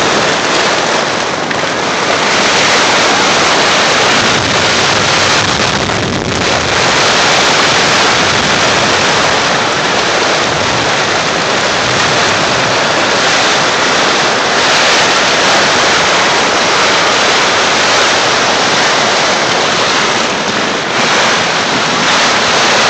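Torrential rain and strong wind of a severe thunderstorm, a loud, steady rush of noise, with gusts buffeting the phone's microphone.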